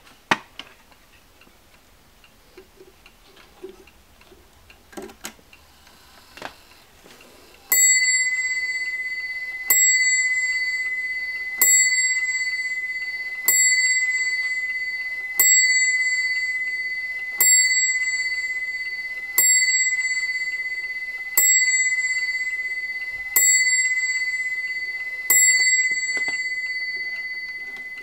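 Vedette French clock striking ten o'clock: ten strikes about two seconds apart, each a single clear high tone that rings on and fades, starting about eight seconds in. Before the strikes, a few faint clicks as the hands are turned to the hour.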